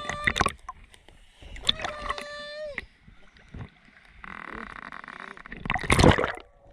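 Sea water sloshing and splashing around a waterproof action camera held at the surface, with a high-pitched voice calling out briefly twice in the first three seconds. Near the end comes a loud rush of water as the camera dips under the surface.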